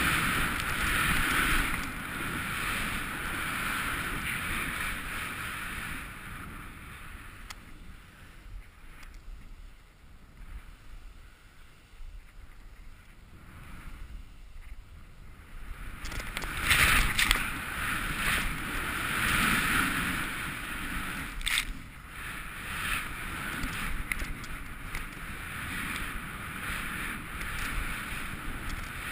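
Snowboard hissing through deep powder, with wind rushing over a helmet-mounted camera's microphone, swelling and fading in loudness and loudest about two-thirds of the way through. A single sharp knock about 21 seconds in.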